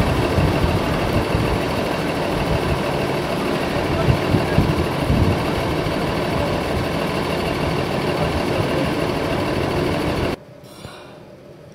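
Loud, steady engine noise from an idling machine or vehicle, which cuts off suddenly about ten seconds in.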